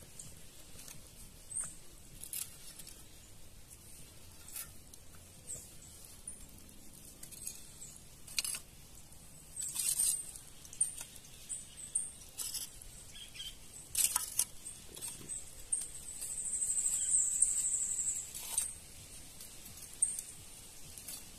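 Lump charcoal clinking and clicking in a metal fire pit as a hand moves the pieces and tucks wood splinters in among them to get the fire going, in a dozen or so scattered sharp clicks. A high-pitched trill runs for about two seconds near the end.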